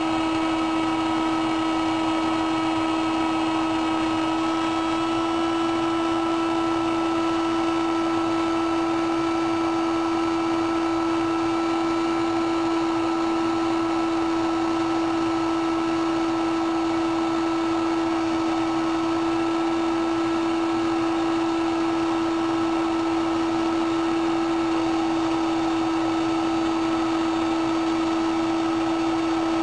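Paint stripper heat gun running steadily, its fan motor giving a constant whine over the rush of air, while it heats a GPU on a laptop motherboard to reflow the chip's solder.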